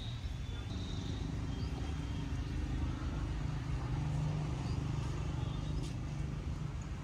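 Low, steady engine rumble of a motor vehicle running at a distance, swelling a little about four seconds in.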